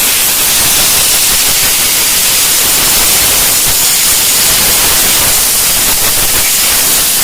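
Compressed-air gun blowing a motorcycle air filter clean: a loud, steady hiss that starts abruptly.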